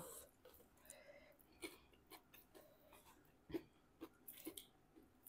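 Faint eating sounds from a person eating a chocolate dessert: soft chewing and scattered small mouth clicks, the loudest about three and a half seconds in.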